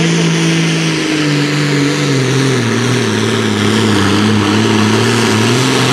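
Pulling tractor's diesel engine at full throttle under the load of the weight sled, its pitch sagging about a second in and again around three seconds as the sled drags it down, then picking up slightly near the end.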